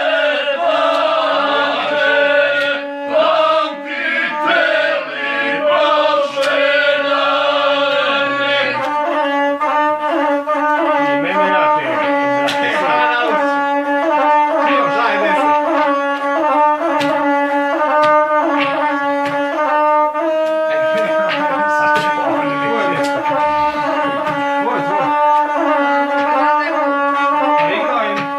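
Gusle, the Balkan one-string bowed fiddle, playing with a man singing along for the first eight seconds or so; then the gusle carries on alone in a quick, stepwise melody.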